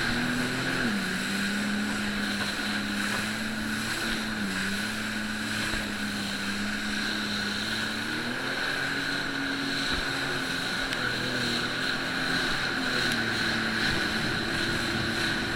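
Jet ski engine running under way, its pitch stepping down about a second in, up again a little past halfway, then down and back up near the end as the throttle changes, with a steady high whine alongside.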